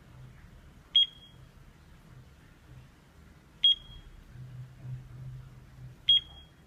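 LED desk alarm clock beeping: three short, sharp high-pitched beeps, each a couple of seconds apart.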